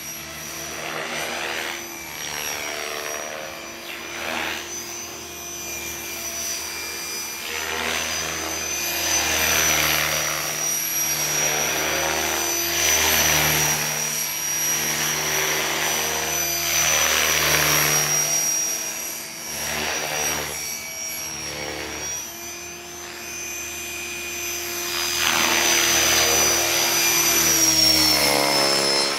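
Gaui Hurricane 550 electric RC helicopter in aerobatic flight: a steady high whine from its brushless motor and drivetrain, with the rotor blades' whoosh swelling and fading again and again as it manoeuvres. It is loudest near the end, as it passes close.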